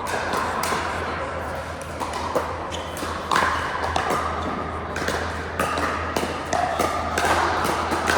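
Pickleball paddles striking plastic balls and balls bouncing, a string of sharp knocks at an irregular pace, over a haze of voices.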